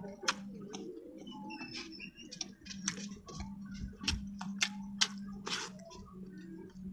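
Close-miked eating: wet mouth clicks and smacks from chewing a mouthful of rice, a run of sharp clicks at an uneven pace.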